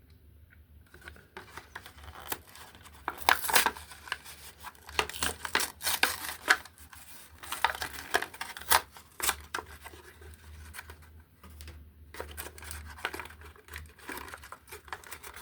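A Hot Wheels blister card being torn open by hand: the plastic bubble crackling and the cardboard backing tearing, in a long string of sharp crackles with a brief pause near the three-quarter mark. The package is stubborn, nearly needing a knife to open.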